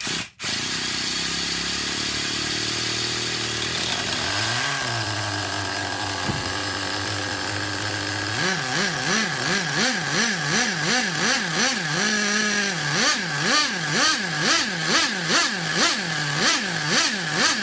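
DTX .18 nitro glow engine running, coming in suddenly and holding a steady idle with one brief throttle blip about four seconds in. From about halfway through it is revved up and down over and over, about one and a half times a second.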